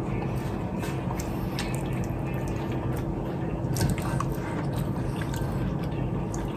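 A person eating: wet chewing and mouth sounds with a few light clicks, over a steady low hum.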